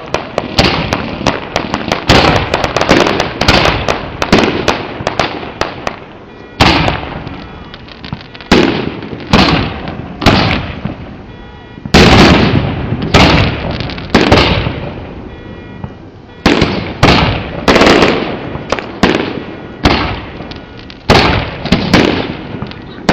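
Aerial fireworks bursting in quick succession, each boom trailing off in an echo. A dense barrage fills the first six seconds, then single booms follow about once a second.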